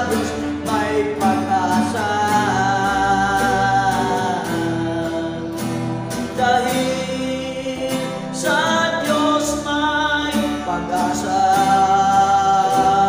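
A man singing a slow Tagalog gospel song, with strummed acoustic guitar and electronic keyboard, in long held notes.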